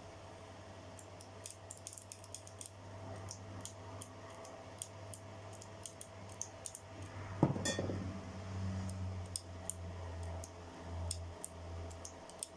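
Small metal parts and hand tools clicking and clinking as a power drill is taken apart by hand, with one louder knock about seven and a half seconds in and a steady low hum underneath.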